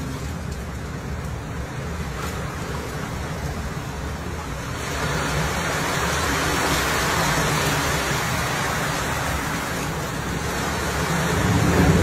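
Rough sea and wind against a ship: a steady low wind rumble with waves rushing along the hull. About five seconds in, a louder rush of sea water and spray washes over the deck edge, then it eases and swells again near the end.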